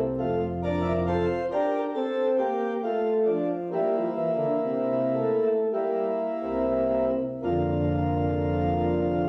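Organ playing held chords. The low bass notes drop out about two seconds in and come back near the end.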